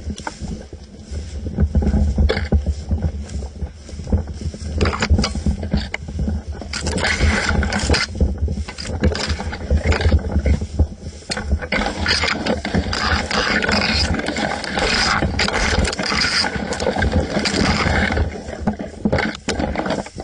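Handling noise on a camera mounted to an airsoft M4 rifle: a steady rumble with scraping and many short knocks as the gun and camera are carried and moved.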